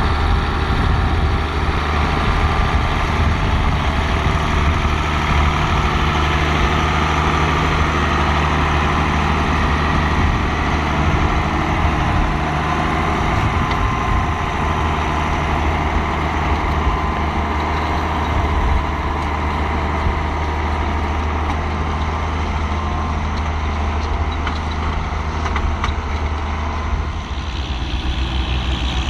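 Diesel engine of a Roadless four-wheel-drive Ford conversion tractor running steadily under load while ploughing uphill.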